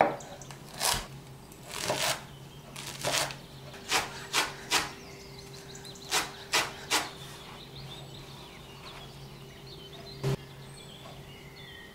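Large kitchen knife chopping fresh parsley on a wooden cutting board: single strokes of the blade onto the wood, several in quick runs of three, over a steady low hum.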